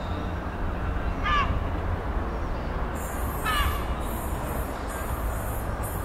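A diesel locomotive approaching at a distance gives a low steady rumble. A bird calls twice over it, one short call about a second in and another halfway through.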